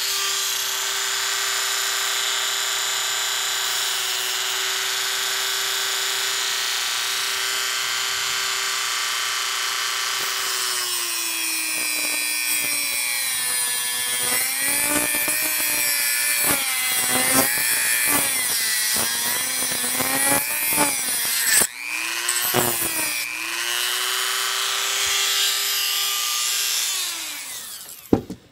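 Corded rotary tool with a cut-off wheel, running at a steady high whine, then cutting into a small part from about ten seconds in, its pitch sagging and wavering under the load. It runs free again briefly and spins down near the end.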